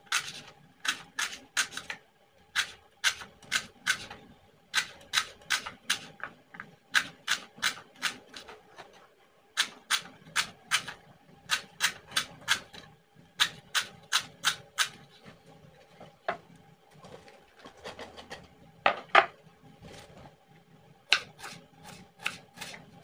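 Kitchen knife chopping lemongrass into thin rings on a wooden cutting board: sharp taps in quick runs of four to six, about three a second, with short pauses between runs. The taps thin out about two-thirds of the way through, a single brief louder sound comes a few seconds before the end, and the chopping then picks up again on a shallot.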